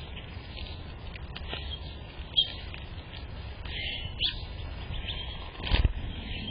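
Small birds chirping in short, scattered calls, with a few sharp knocks, the loudest near the end, over a steady low rumble.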